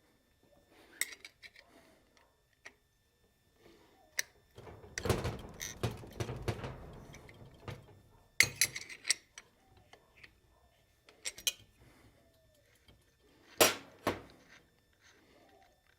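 Handling noises of work on an electric jackhammer ahead of an oil refill: scattered metallic clinks and knocks, a busier stretch of rustling and knocking about five seconds in, and sharp knocks around the middle and again near the end.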